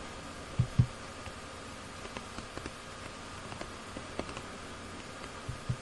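Room tone of steady microphone hiss with a faint high whine, broken by a few soft clicks, two close together a little under a second in.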